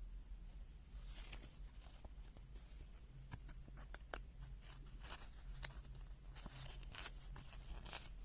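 Paper rustling and sharp little clicks as the pages of a small printed user manual are handled and turned, over a steady low hum.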